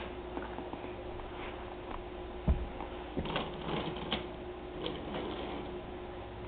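Toy train running on its track: irregular small clicks of the wheels over the rail joints over a steady hum, with one low thump about two and a half seconds in and a quick run of clicks just after.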